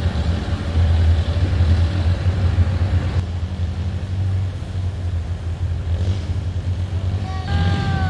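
Speedboat's outboard engines running steadily at speed, a deep even hum with rushing water and wind over it. Near the end a short falling tone sounds over the engine.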